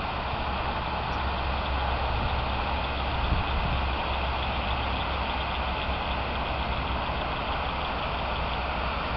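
Large river fountain jets spraying and falling as a steady rushing noise, with a steady low rumble underneath.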